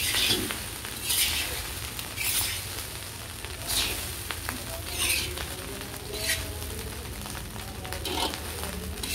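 Egg fried rice being stirred and tossed in a large wok with a metal spatula, sizzling in bursts about every second or so as the rice is turned. A steady low hum runs underneath.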